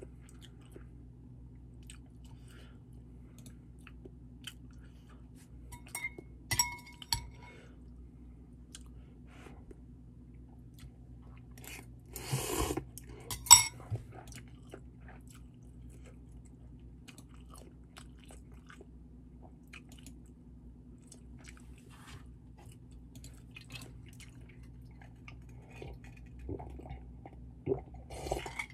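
Quiet chewing of ramen with the mouth closed over a low steady hum. Scattered small clicks, a brief clink around six to seven seconds in, a short noisy sound about twelve seconds in, then a sharp clack just after, the loudest sound.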